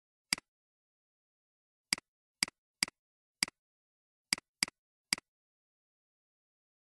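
Computer mouse clicks: eight sharp clicks at uneven intervals, each a quick double snap of button press and release, with dead silence between.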